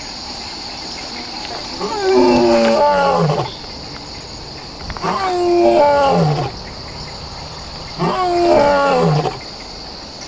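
Lion roars, three times, each about a second and a half long and falling in pitch at its end, over steady cricket chirping.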